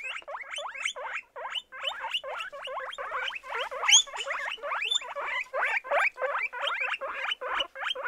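Guinea pigs squeaking: a rapid run of short, rising squeaks, about four a second, with one louder, higher squeak midway.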